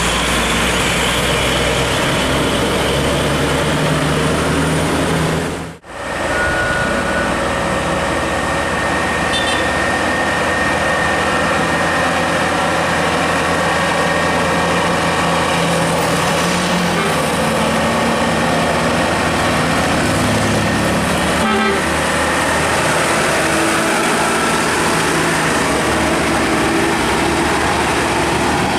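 Road traffic and bus engines running past, with horn toots among them. The sound briefly drops out about six seconds in.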